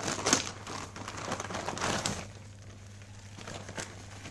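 Plastic mailer bag crinkling and rustling as it is pulled open by hand, loudest in the first two seconds, then dropping to a few faint rustles and clicks.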